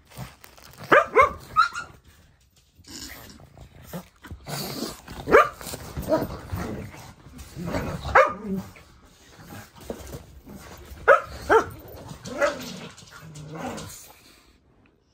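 Young pugs barking and growling while they play-fight: a sharp bark or pair of barks every few seconds, with rougher growling between.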